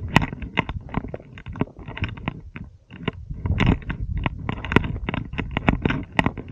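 Footsteps crunching and scraping on loose stones and rocky scree during a steep downhill scramble: an irregular run of gritty crunches and clicks, with a few sharper stone clicks, over a low rumble.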